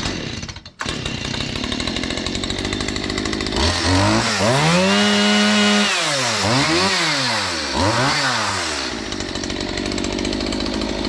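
Petrol chainsaw idling, then revved up three times: once held high for about two seconds, then two quick blips, each falling back to idle.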